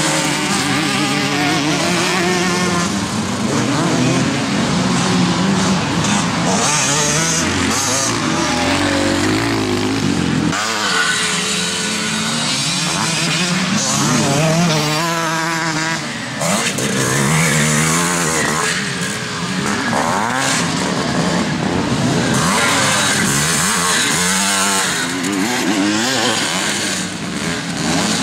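Evo-era motocross bikes racing, their engines revving up and falling back over and over as the throttle is worked and gears change.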